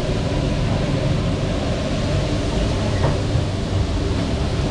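Steady low rumble with a hiss over it from gas burners under woks of oil deep-frying whole chickens, with one light knock about three seconds in.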